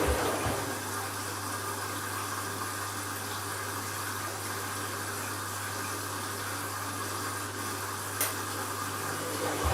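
Candy washing machine on an empty bleaching cycle, its drum paused: a steady hum with water running through the machine. A single click comes about eight seconds in.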